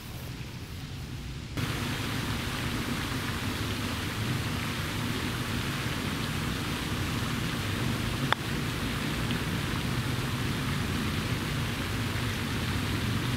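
A steady, even hiss that starts abruptly about a second and a half in, with one sharp click a little past the middle.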